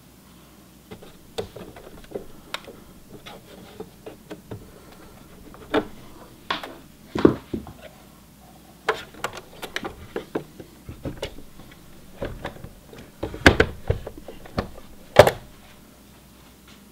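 Irregular clicks and knocks of a Singer Heavy Duty sewing machine's plastic housing being handled and tipped over on a tabletop, with a few louder thunks about six, thirteen and fifteen seconds in.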